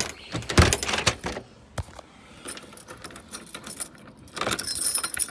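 A key being worked in a euro cylinder door lock to test it: sharp metallic clicks in the first couple of seconds, then keys jangling near the end.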